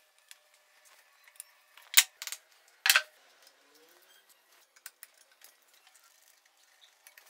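Metal clinks of tools and loose engine parts being handled on a motorcycle cylinder head: two sharp metallic clicks about two and three seconds in, with a few faint ticks between long quiet gaps.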